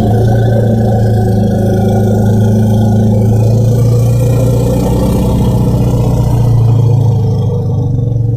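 Synthetic stegosaurus call built from elephant-like sounds: one long, low, steady buzzing drone that holds its pitch throughout.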